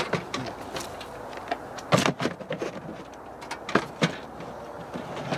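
Handling knocks and clicks from a portable butane camp stove being lifted and shifted about on a hard surface, with the sharpest knock about two seconds in and two more near the four-second mark.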